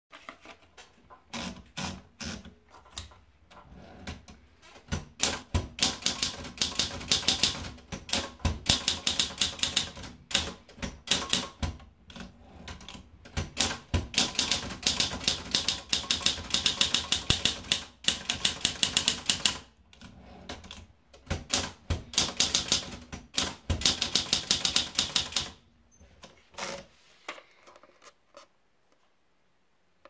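Princess 300 portable manual typewriter. A few scattered clicks come as the paper is fed in, then the keys strike in fast runs of typing, three lines with short pauses between, and a few last clicks near the end.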